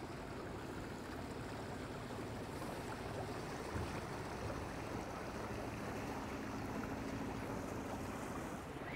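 River water washing and lapping as a motor boat passes. The boat's low engine hum comes in about halfway through.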